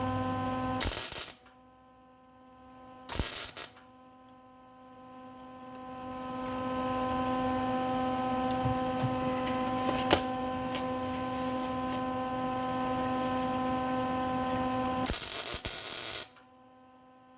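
Steady electrical hum in a workshop, broken by three short, loud bursts of hissing noise: one about a second in, one about three seconds in, and a longer one of over a second near the end.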